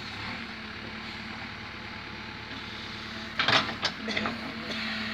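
JCB backhoe loader's diesel engine running steadily as it works its bucket in soil, with a sudden loud clatter and a few smaller knocks about three and a half seconds in.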